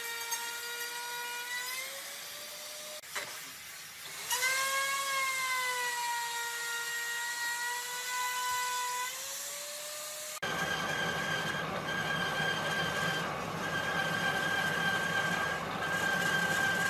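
Power tool motor whining at high speed, its pitch sagging and recovering as it is loaded against the wood, with a short stop and spin-up about three to four seconds in. Near the middle it cuts abruptly to a rougher, noisier machine sound with a steady high whine that breaks off briefly a few times.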